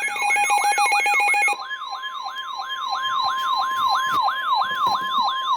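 Emergency alert tones: an electronic siren wailing up and down about three times a second over a steady alert tone. About one and a half seconds in, a buzzing two-tone sound cuts off and a single steady tone takes its place, ahead of a severe thunderstorm warning.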